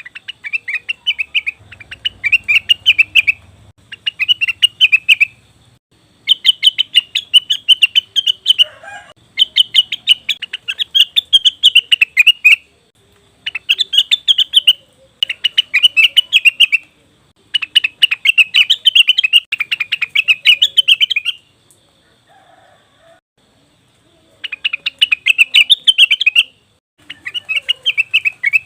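Cucak wilis (rengganis) calling in loud bursts of rapid, stuttering high notes. Each burst lasts one to four seconds, with short pauses between them. The recording is a lure meant to prompt caged birds into song.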